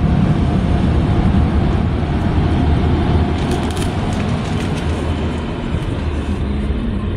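Car moving, a steady loud rumble and rush of air and road noise with no let-up, and a few faint clicks about halfway through.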